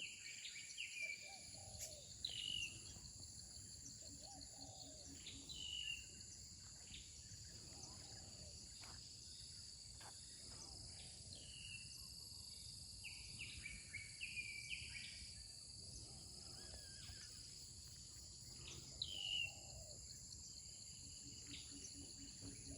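Faint countryside ambience: insects drone steadily at a high pitch while a bird gives short, downward-sliding calls every few seconds.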